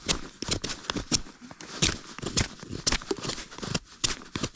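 A Buck knife shaving thin curls off a stick of kindling, in repeated short scraping strokes about two a second.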